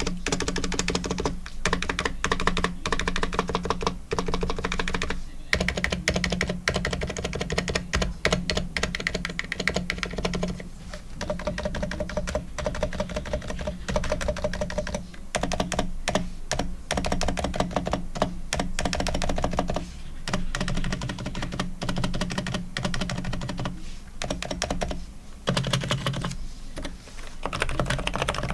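Fast, continuous typing on an ABKO KN10BT Bluetooth electro-capacitive keyboard in its stock, not-yet-lubricated state, many keystrokes a second with a few brief pauses.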